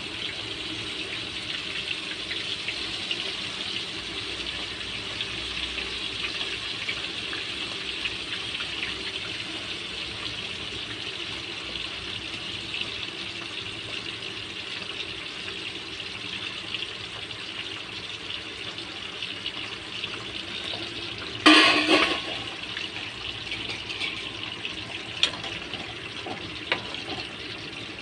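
Vegetables sizzling steadily in hot oil in an iron kadai. A sudden loud burst comes a little past three-quarters of the way through, followed by a few faint clicks.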